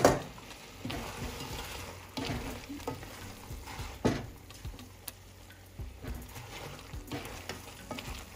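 Silicone spatula stirring fried plantain chunks into thick gizzard stew in a pan: irregular scrapes and soft knocks against the pan, with a loud knock at the very start and another about four seconds in.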